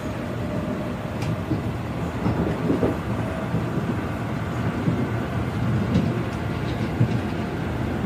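Inside a moving metro train carriage: a steady low rumble of the train running on the rails, with a few light clicks and rattles.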